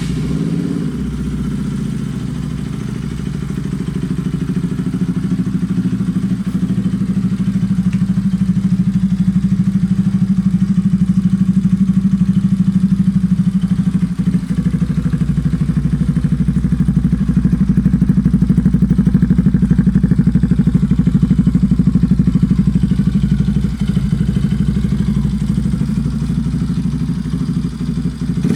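Motorcycle engine fitted with an aftermarket exhaust, idling steadily.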